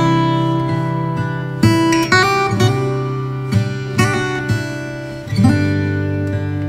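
Background music: an acoustic guitar playing plucked and strummed notes.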